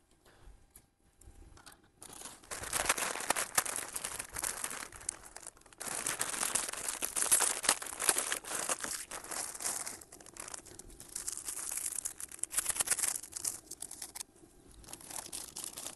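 Shin Ramyun instant-noodle packet crinkling as it is handled and torn open, in irregular spells of crackling from about two seconds in until near the end.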